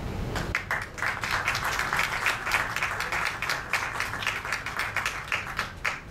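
Audience applauding, starting about half a second in and dying away just before the end.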